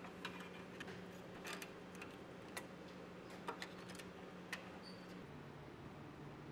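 Faint, irregular clicks and taps as the plastic dust shroud pieces of a SawStop cabinet saw are handled and fitted back together around the arbor, over a faint steady hum.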